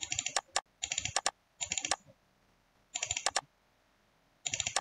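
Computer keyboard being typed on in five short bursts of rapid clicks, with quiet gaps between them.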